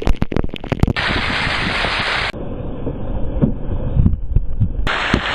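Waterfall rushing, with gusts of wind buffeting the microphone; the rush changes tone abruptly a few times where the footage is cut.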